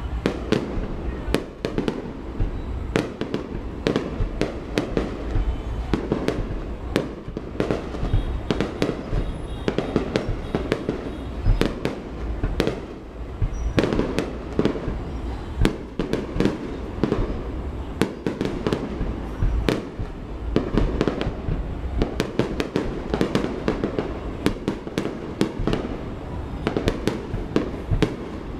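Fireworks display: a dense, unbroken run of aerial shell bursts and sharp cracking bangs, several a second.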